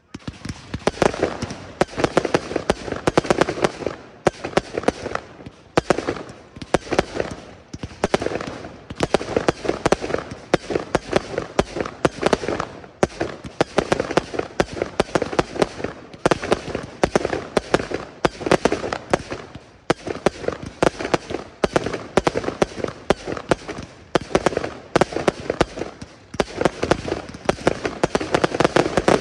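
Fireworks display: a dense, continuous barrage of rapid cracks and pops from firework effects fired in quick succession, coming in repeated swelling waves.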